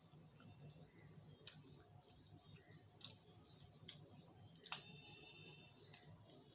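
Quiet chewing of samosa, with scattered wet mouth clicks and smacks, the sharpest about three-quarters of the way through.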